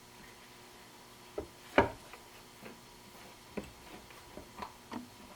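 Light, scattered clicks and taps of small metal parts and hand tools being handled while the valve body is bolted onto a Ford C6 automatic transmission. The sharpest knock comes about two seconds in.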